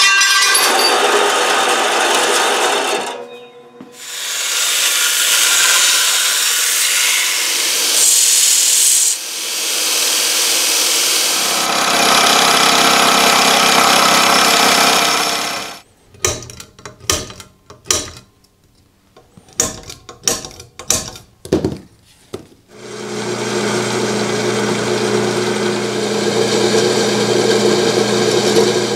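A bandsaw cutting a small steel part. After a short break, a vertical milling machine's end mill cuts steel held in a vise with a steady sound, which then breaks into a run of short separate bursts. Near the end, a drill press runs with a steady hum as its bit drills through a steel plate.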